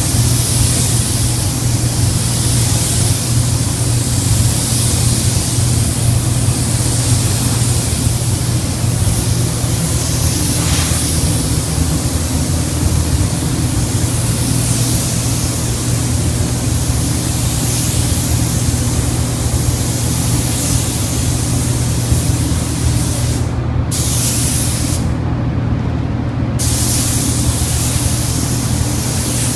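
Gravity-feed air spray gun hissing steadily as it sprays paint onto a car body, over a steady low hum. The hiss cuts out briefly twice near the end.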